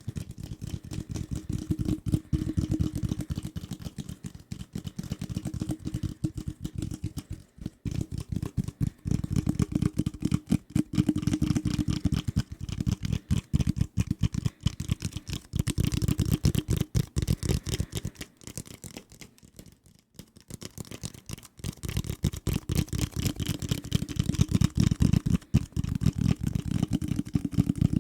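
Fingers tapping fast and hard on assorted desk objects: a dense stream of quick taps, mostly dull and low, with brighter clicky taps at times. The tapping pauses briefly twice.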